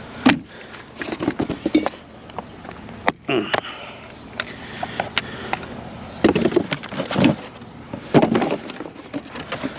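A discarded fan being broken apart by hand for scrap, its blades popped off: irregular sharp snaps, knocks and clatter, with louder clusters every few seconds.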